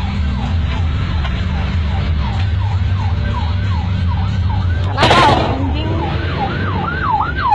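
Emergency vehicle siren in a fast yelp, about three sweeps a second, growing louder toward the end, over a steady low vehicle engine rumble. A short loud blast of noise cuts in about five seconds in.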